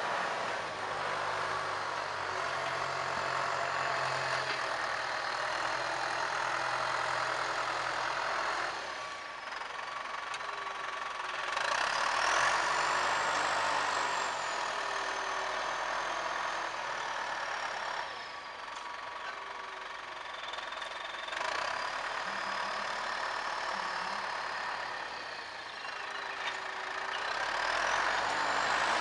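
Diesel farm tractor running under load as it drags a tillage implement through the soil. The engine noise swells and eases several times, with a high whine that rises and falls in pitch.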